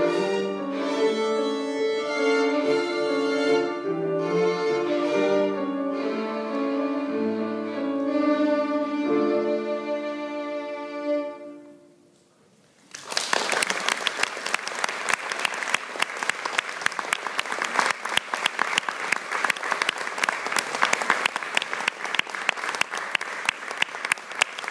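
Solo violin with piano accompaniment playing the last bars of a piece, closing on a held final note that dies away. After about a second of silence the audience breaks into steady applause about halfway through.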